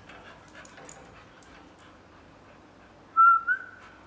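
Heavily pregnant American Staffordshire Terrier giving two short high-pitched whines in quick succession, about three seconds in; the first is the louder.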